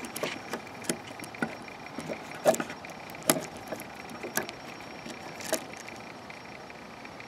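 Irregular clicks and knocks from a GorillaPod's ball-jointed plastic legs being bent and wrapped around a wooden post, with hand-handling noise; a few louder knocks come in the middle.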